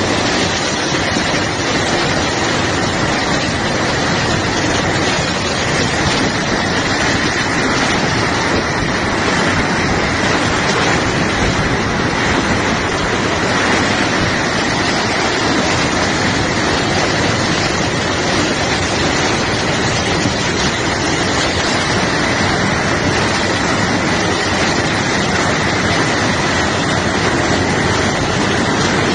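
Floodwater rushing through an overflowing ravine channel, a loud steady rush of water that does not let up.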